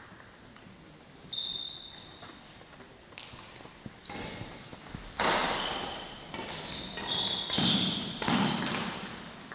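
Badminton doubles rally in a sports hall: rackets striking the shuttlecock with sharp cracks that ring in the hall, mixed with short squeaks of shoes on the court floor. A few hits come in the first seconds, then a fast, louder exchange from about four seconds in.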